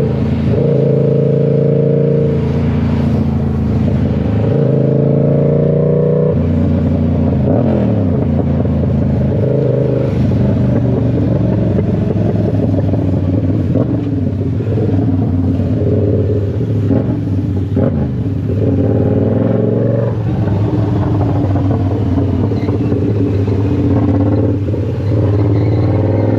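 Car engine and road noise from inside a moving car, the engine's pitch rising and falling as it speeds up and slows.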